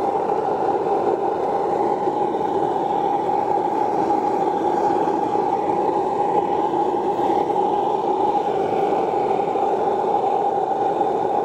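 Small metal-casting furnace running at full heat, giving a loud, steady rushing noise that does not change.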